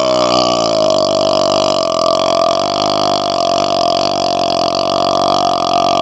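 A man's long, unbroken burp, held at a steady pitch.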